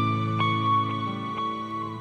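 Soft instrumental background music: held notes with a few new notes struck over them, fading down near the end.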